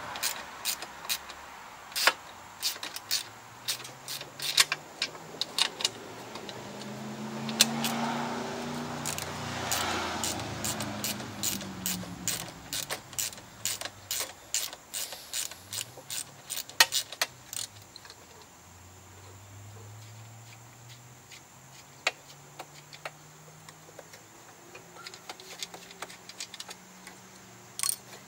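Repeated clinks and rattles of small metal parts and hand tools being handled, thickest in the first half and sparser later. A passing vehicle rises and fades in the middle.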